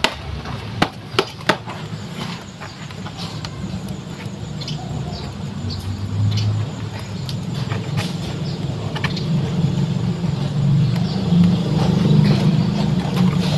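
Low steady rumble like a motor vehicle's engine, growing louder over the last several seconds. A few sharp clicks and knocks come in the first couple of seconds, with small ticks scattered after.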